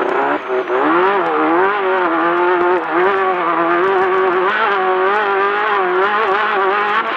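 Class 10 off-road race car's engine running hard at high revs, its pitch rising and falling with the throttle and dipping briefly about half a second in.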